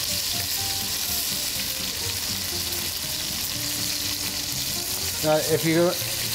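Chicken hindquarters searing skin side down in hot oil in a sauté pan: a steady sizzle.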